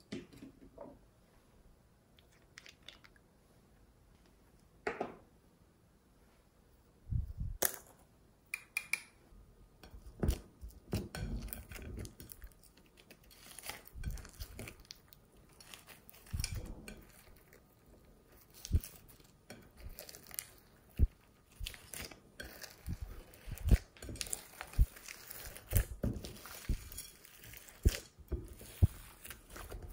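Hands squeezing and folding glossy slime mixed with beads, floam and glitter in a glass bowl: wet squishing with crackling clicks and pops. Only a few scattered clicks at first, then dense and continuous from about a third of the way in.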